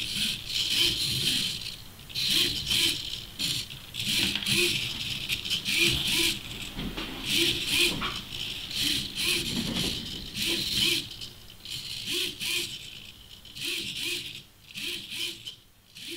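Hobby servos of a 3D-printed animatronic eye mechanism whirring and buzzing in short, irregular bursts as they move the eyeballs and eyelids. The bursts fade near the end.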